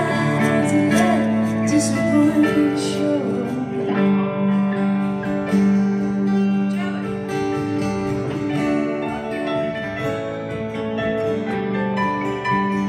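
Live band playing without vocals: acoustic guitar and keyboard, with held chords changing every second or two.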